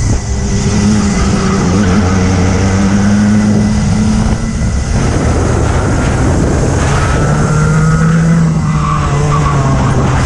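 Racing kart engine heard from onboard at race pace, its note climbing, dipping briefly about four and a half seconds in, then climbing again and falling off near the end, over heavy wind and road noise.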